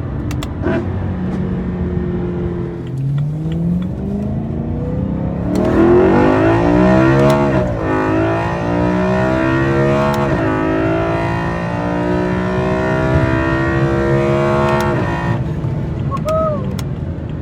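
BMW M3's S65 4.0-litre V8 accelerating hard, with high-pitched intake induction noise from a carbon fiber intake and plenum. The pitch climbs from about three seconds in, drops and climbs again at two upshifts, then cuts off about two seconds before the end as the throttle is lifted.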